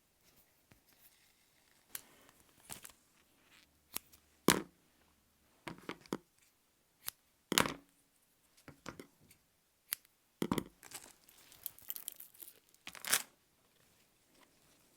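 Paper being torn by hand in a series of short, irregular rips, a few of them louder than the rest, with light paper rustling in between.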